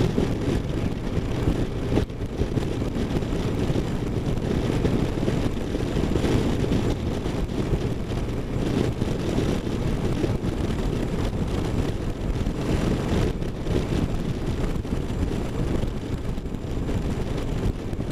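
V-twin cruiser motorcycle riding at highway speed: a steady low engine and road rumble with wind rushing over the microphone.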